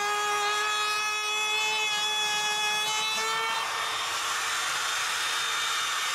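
Electric drill with a paddle bit boring through pine, its motor whining steadily. About three and a half seconds in, the pitch steps up and a rougher cutting noise takes over.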